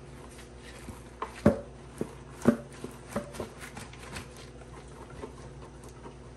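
Canister of Comet powder cleanser shaken and tapped by gloved hands to sprinkle powder onto sponges: a string of irregular taps and knocks, the two loudest about a second and a half and two and a half seconds in.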